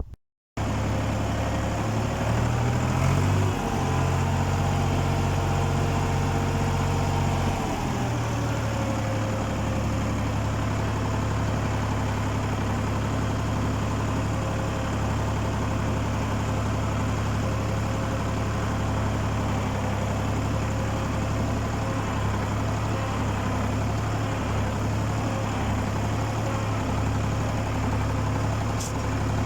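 Ford 4000 tractor's three-cylinder engine running steadily, likely pulling a plough. Its note wavers for the first several seconds, then settles and holds steady.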